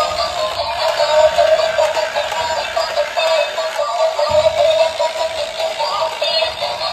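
Battery-operated DJ Spiderman toy playing its built-in electronic tune with synthesized singing through its small speaker, thin and with no bass.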